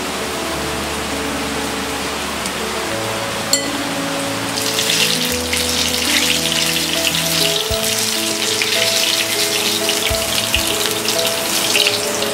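Paneer pakoras deep-frying in hot oil, the oil sizzling and crackling, growing much louder about four and a half seconds in as a wire skimmer stirs and lifts them. Background music with held notes plays throughout, and a single sharp tap comes shortly before the sizzling rises.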